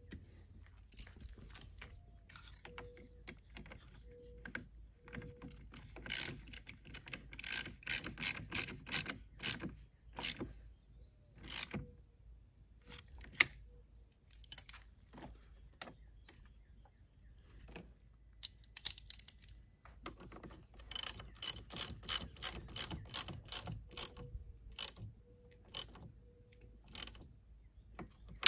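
A 3/8-inch ratchet and socket clicking as it tightens the car battery's terminal clamps. The clicks come in two runs of about three or four a second, with a pause between them.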